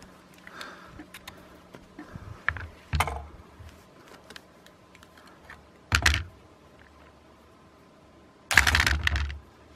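A metal DC motor and its wire leads being handled on top of lead-acid batteries: light clicks and taps, with a few louder knocks and a longer noisy burst of almost a second near the end.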